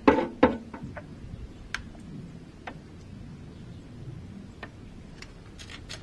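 Two knocks as an emptied paint tub is lifted off the paint bucket, then faint stirring of the mixed paint and a few light taps of a brush near the end.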